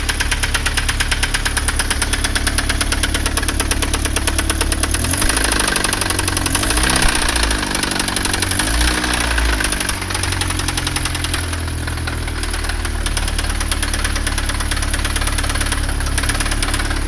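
Astra 1.8 four-cylinder engine running with a loud, rapid knocking from the bottom end, revved up and back down twice around the middle. The mechanic takes it for connecting-rod knock, a spun rod bearing between cylinders 1 and 2, with the oil-pressure warning light on.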